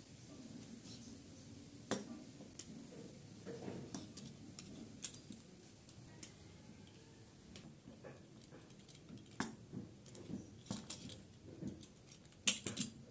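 Knife blade knocking and tapping on a wooden chopping board as a log of bun dough is cut into pieces, in scattered single knocks. A louder quick clatter comes near the end.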